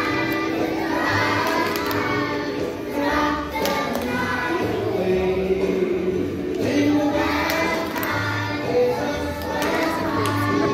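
A group of young children singing a song together over instrumental backing music with a bass line.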